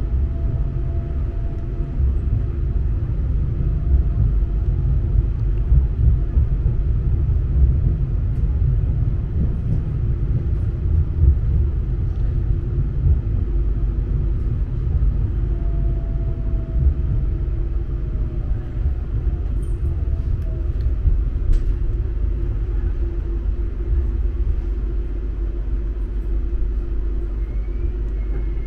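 Steady low rumble of an Auckland AM-class electric multiple unit in motion, heard from inside the passenger car, with a constant hum and a faint whine that slides downward partway through.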